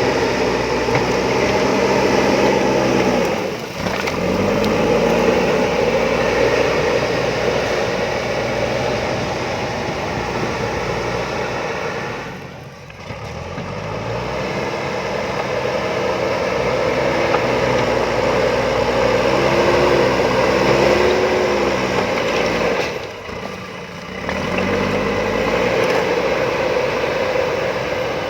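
JCB backhoe loader's diesel engine running under working load, its revs rising and falling as the machine works, with three brief drops in loudness.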